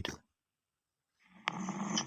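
A low, rasping, snore-like sound that starts about one and a half seconds in, with a sharp click at its onset. The people present hear it as a strange sound they cannot place.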